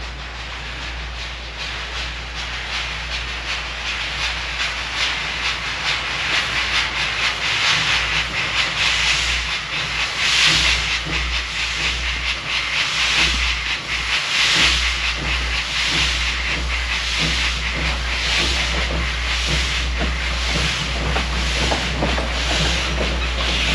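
Glover steam logging locomotive approaching slowly, its exhaust chuffing in an even beat about once a second over a steady steam hiss, growing louder as it nears.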